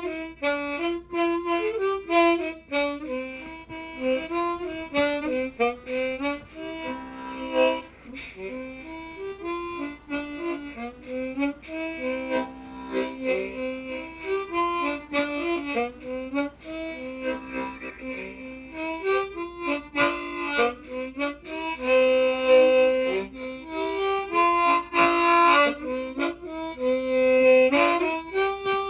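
Old harmonica playing a quick traditional dance tune, a steady stream of fast single notes and chords.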